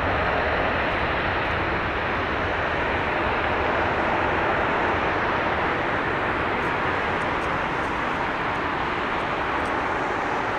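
Steady jet engine noise from a twin-engine jet airliner moving along the runway, a continuous even rush that eases slightly towards the end.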